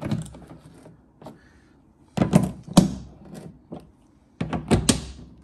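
Clicks and knocks from a driver and hands working the plastic window regulator carrier and its twist-lock clips in a car's steel door, in two short bursts about two and four and a half seconds in.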